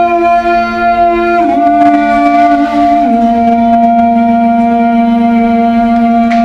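Tibetan singing bowl ringing one steady tone, while a woman sings long held notes into it that step down in pitch twice.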